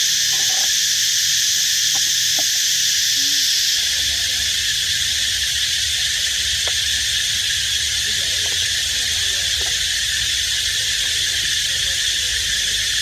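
Loud, steady drone of an insect chorus, high-pitched and unbroken. A low rumble comes in underneath about four seconds in.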